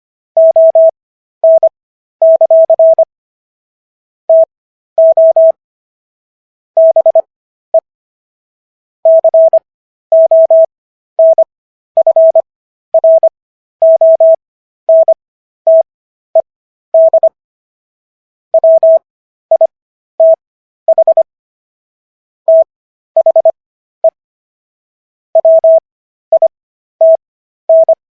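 Morse code sent as a single mid-pitched beeping tone: short and long beeps run together in quick groups, with longer pauses between them. The characters are keyed fast, at 25 words per minute, and spaced out with Farnsworth gaps for an overall speed of 15 words per minute.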